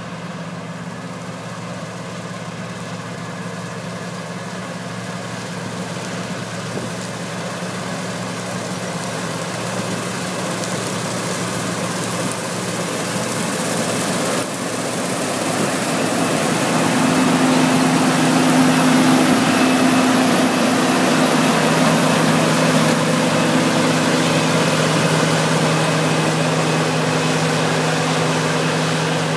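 John Deere 9760 combine running at a steady engine speed while harvesting wheat, with a rushing mechanical noise over the engine. It grows steadily louder until about two thirds of the way through, then eases off slightly.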